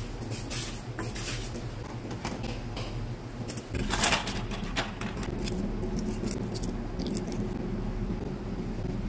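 A wooden spoon stirring a pan of simmering rice and broth, with scattered light clicks, then a short splash about four seconds in as boiled eggs in a wire strainer are handled in water. Light crackling clicks of eggshells being peeled follow over a bowl of water, all over a steady low hum.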